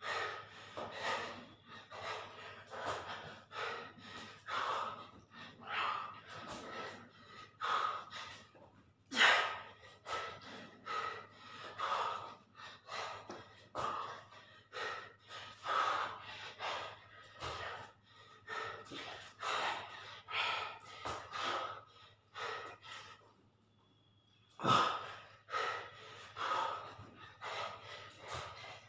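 A man's heavy, rapid breathing, hard exhaled puffs about once a second from the exertion of dumbbell push-ups, with a short pause about three-quarters of the way through. A steady low hum sits underneath.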